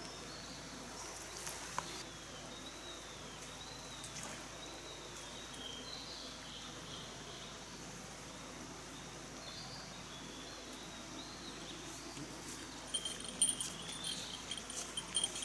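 Forest ambience: a bird singing short rising-and-falling chirps over a steady hiss. Near the end, a rhythmic metallic jingling starts, in step with a person walking closer.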